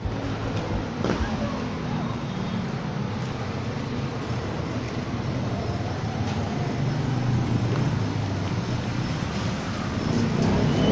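Street traffic noise: a steady engine hum from vehicles on the road, swelling a little partway through.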